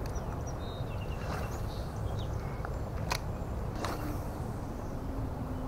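Frogs calling across the water, heard as a couple of short sharp calls among a few faint bird chirps over a steady low background rumble.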